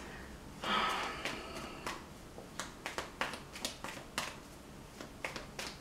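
A deck of tarot cards being shuffled by hand: a short rustle about half a second in, then a run of quick, light card clicks and slaps as the cards pass from hand to hand.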